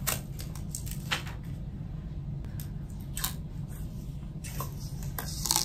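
Thin protective plastic film being peeled off a clear plastic phone case, giving scattered crinkles and sharp crackles, thickest and loudest just before the end. A steady low hum runs underneath.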